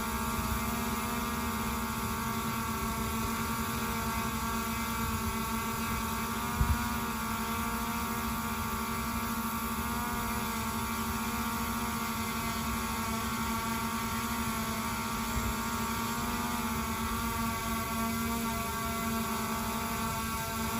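DJI Mavic Air 2 drone hovering, its propellers giving a steady, even-pitched buzzing hum. A brief low thump about six and a half seconds in.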